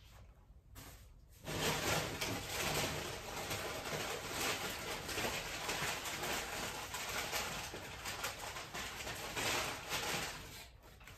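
Packing paper rustling and crinkling as wrapped glassware is unpacked, starting about a second and a half in and easing off near the end.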